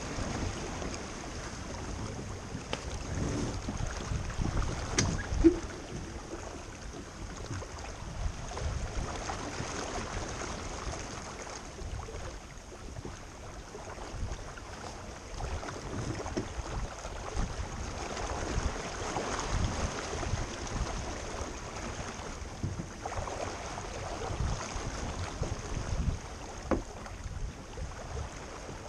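Sailboat under way: water rushing along the hull and wind buffeting the microphone in gusts, with a few short knocks from the boat, the loudest about five seconds in.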